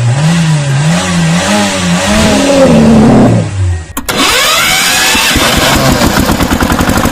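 Tractor engine sound revving with a wavering, rising pitch for about four seconds, then a sharp click, then the engine settling into a steady, fast chugging.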